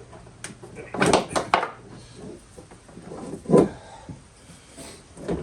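Kawasaki JS550 engine knocking and clunking against the hull as it is worked down into the jet ski's engine bay: a quick cluster of knocks about a second in and one heavy knock about three and a half seconds in.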